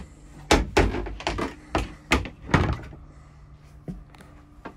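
A quick run of knocks and thuds, about seven in two and a half seconds: a wooden cabin door on a small boat being pushed shut, and knocks from moving through the cabin.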